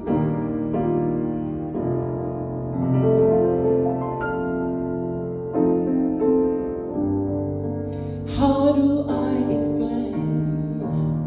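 Slow piano instrumental intro of a worship song, sustained chords and single notes ringing over one another. A brief rushing sound rises over the piano about eight seconds in.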